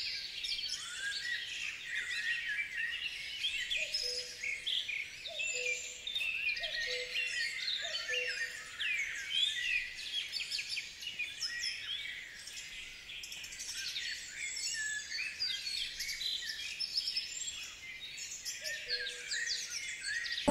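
Dense chorus of many birds chirping and singing. A low note sounds four times, about a second and a half apart, a fifth of the way in, and once more near the end.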